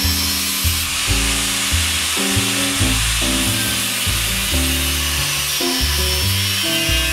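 Background music with a steady beat and a bass line that moves in stepped notes.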